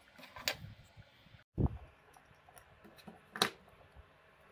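Small plastic toy cube parts and its circuit board handled: a few light clicks and taps, a soft low thump about one and a half seconds in, and a sharp click about three and a half seconds in.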